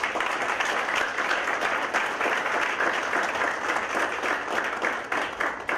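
A small audience applauding, many hands clapping together; the clapping thins out near the end.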